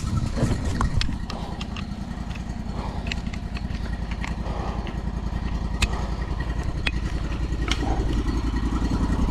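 A sawmill's engine idling steadily with an even low pulse, with scattered sharp clicks and knocks over it.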